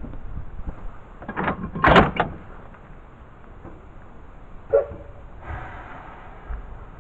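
Heavy metal bangs and clunks from a standing narrow-gauge steam train. There is a cluster of loud knocks a second and a half to two seconds in, a single ringing clank near five seconds, then a brief hiss.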